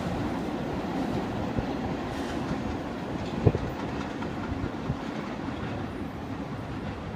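Staten Island Railway train pulling away down the line: a steady rumble of wheels on rail, slowly fading as it recedes, with one sharp clank about three and a half seconds in.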